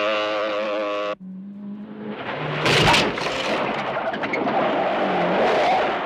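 A motorcycle engine running hard at a steady high pitch, cut off abruptly about a second in. Then a Ford police sedan slides and skids over wet, muddy ground, with tyre and spray noise, its engine running under it, and a sharp crash about three seconds in.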